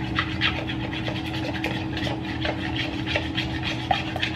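Raw eggs being beaten by hand in a bowl, the utensil scraping and clicking against the bowl at about three strokes a second.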